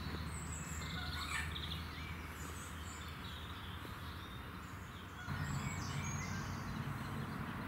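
Outdoor ambience of small birds chirping and twittering in short bursts over a steady low rumble; the background gets a little louder about five seconds in.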